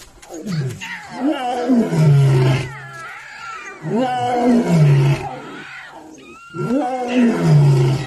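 Male lion roaring repeatedly: about three long roars, each sliding down to a low held note, with higher wavering calls in between.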